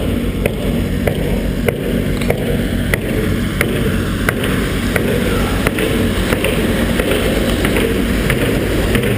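An engine running steadily with a low hum, with a sharp tick repeating about every two-thirds of a second.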